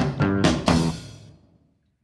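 Background music: a song with strummed guitar chords and drums, its last chord dying away about a second in and trailing into silence.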